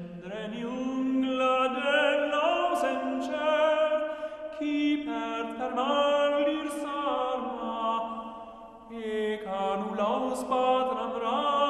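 Soundtrack vocal music: long sung notes that waver and glide, fading briefly near the end before the voices swell again.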